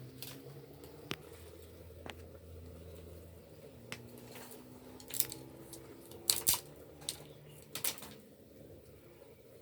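Scattered sharp clicks and taps, most of them from about five to eight seconds in, over a low hum that stops about three and a half seconds in.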